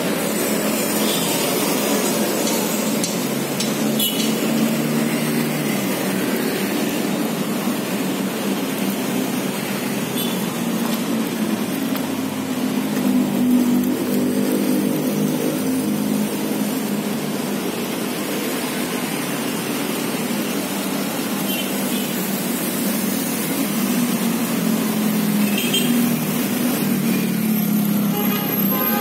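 Busy street traffic, mostly motor scooters with some cars, passing close by. Engine hum swells and fades as individual bikes go past, over a steady roar of tyres and traffic.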